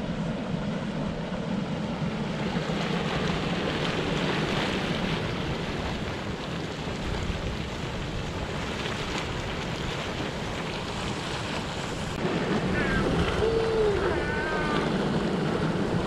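Steady rushing hiss of steam venting from the fumaroles and mudpots, slightly louder about three quarters of the way through, with a faint voice or call briefly near the end.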